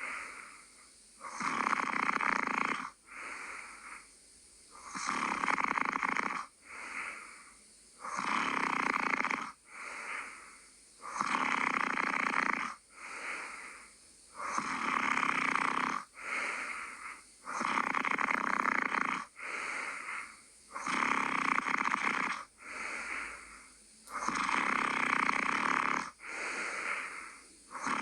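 Steady snoring in a regular breathing rhythm: a loud snore roughly every three seconds, each followed by a shorter, quieter breath.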